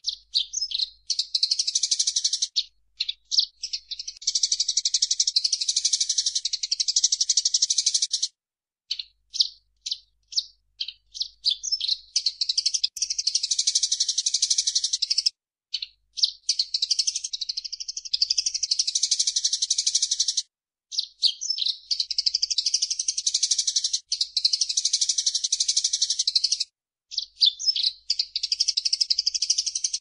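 Eurasian tree sparrow chattering: runs of rapid, high chirps lasting several seconds each, broken by short stretches of single scattered chirps.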